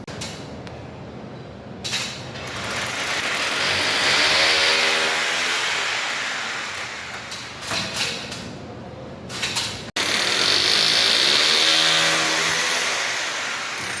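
A loud motor sound with a hiss over it that swells and fades twice, its pitch rising and falling as it builds, with a sudden break between the two.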